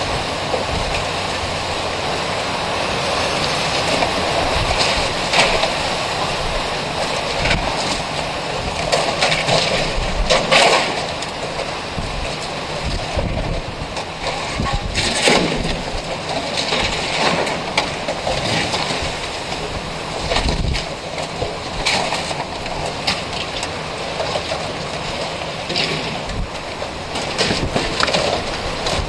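Strong, gusting storm wind blowing across the microphone, with loose metal window awnings banging against the building every few seconds as the wind works them apart.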